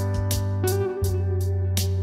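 Background music with a steady beat over sustained bass notes.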